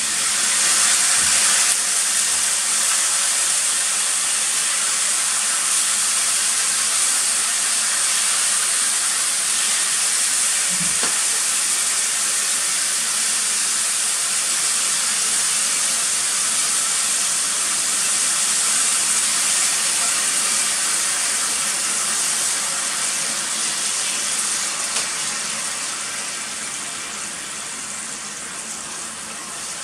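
Thin-sliced beef sizzling in beef tallow in a cast-iron sukiyaki pot: a steady loud hiss. It eases off over the last several seconds, as the meat begins to simmer in bubbling sukiyaki sauce.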